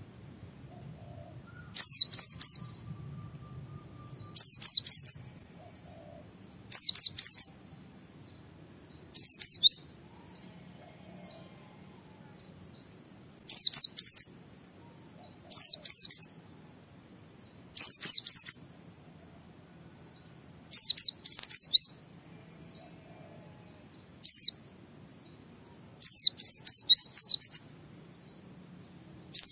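White-eye (pleci) in full song: short phrases of rapid, high, downward-sliding notes, repeated about every two seconds.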